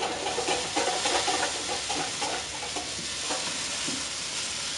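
Steady sizzling from food cooking on the stovetop, with stirring in a pan.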